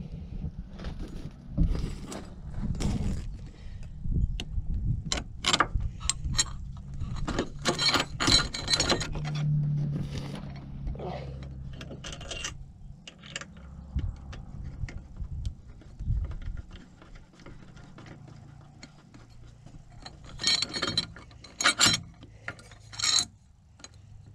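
Metal hardware being handled while an angle-iron bracket is fitted with hex bolts and nuts: irregular clinks, knocks and rubbing, with clusters of sharper metallic clatter about eight seconds in and again near the end.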